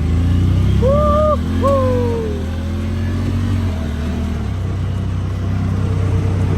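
A motor vehicle engine running steadily, easing off after about four seconds. Two short pitched calls, the second falling, sound over it about a second in.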